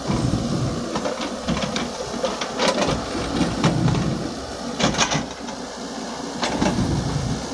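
Excavator at work digging sand: its engine running with a low rumble under a string of irregular clanks and scrapes from the bucket and arm.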